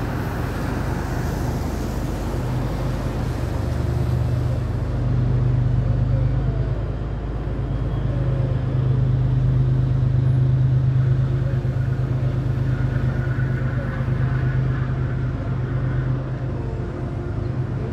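Diesel locomotive of an outbound commuter train working hard as it hauls its coaches up a grade on wet rails, heard as a steady low engine drone that swells for several seconds in the middle. A car passes on the wet road at the start.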